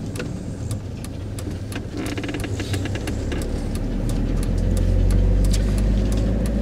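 Motorhome on a Fiat base driving along, its engine rumbling low and growing louder about four seconds in as it pulls away, with light clicks and rattles throughout.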